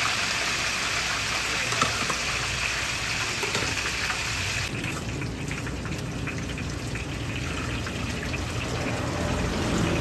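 Stinky tofu deep-frying in a wok of hot oil: a steady, hissing, bubbling sizzle that turns duller about halfway through.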